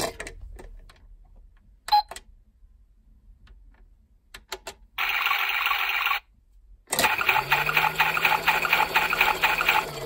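Battery-powered toy washing machine being started: a few plastic clicks, then its pulsing electronic washing sound effect plays briefly around the middle and again from about seven seconds in. Under the second stretch the drum motor hums, rising a little in pitch as the drum spins up.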